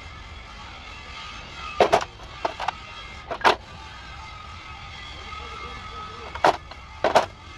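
A series of sharp, irregular knocks over steady background noise: a pair about two seconds in, two lighter ones just after, one more a second later, then after a pause one knock and a final pair near the end.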